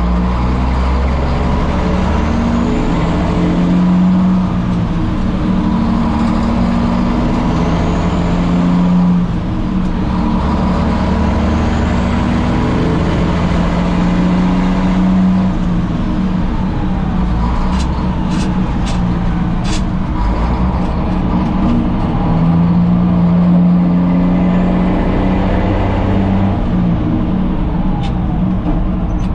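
Straight-piped Caterpillar diesel in a 1962 Peterbilt truck running on the road, its engine note holding for a few seconds and then changing, again and again. A short run of faint clicks comes a little past halfway.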